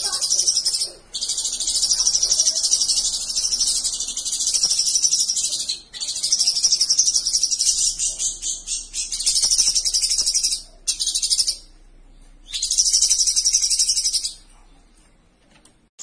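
A cucak cungkok, a caged leafbird, sings a fast, high-pitched twittering song in long phrases of a few seconds each, broken by short pauses. The song stops about a second and a half before the end.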